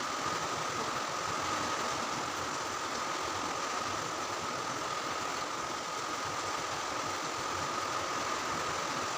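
Steady hissing noise with a faint steady whine, from the stove under a pot of moong dal at a rolling boil.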